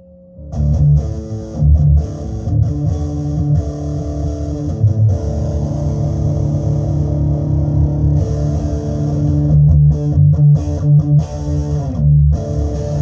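Electric guitar played through an MXR EVH 5150 Overdrive pedal, distorted riffing with its low strings strong. It starts after a brief pause and is cut into short, choppy stops a little before the end.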